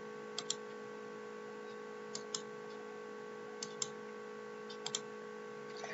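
Computer mouse clicking: five short pairs of quick clicks spaced a second or so apart, over a steady electrical hum.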